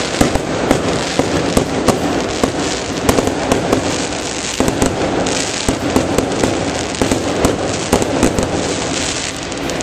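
Fireworks going off in quick succession: a dense crackle cut by many sharp bangs, one after another with no break.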